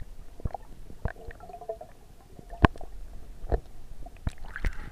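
Muffled underwater sound from a camera held beneath the river surface during a fish release: a low gurgling rumble with scattered sharp clicks and knocks of water and handling against the camera.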